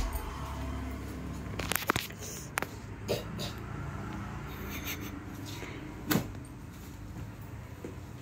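Folded sarees being handled on a shop counter: fabric rustling and several short, soft knocks as pieces are set down and picked up, the loudest near the start and about six seconds in, over a steady low hum.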